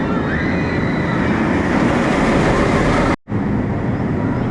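Roller coaster train running on its steel track: a loud, steady rumble of wheels and rushing air, with a faint squeal rising about half a second in. It breaks off for an instant about three seconds in.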